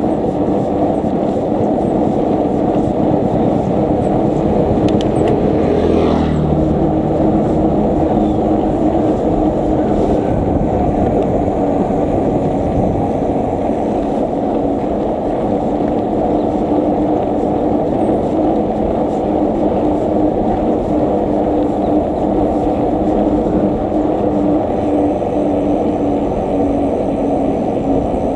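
Wind buffeting the microphone of a camera carried on a moving bicycle: a loud, steady low rumble, with a faint steady hum running through it.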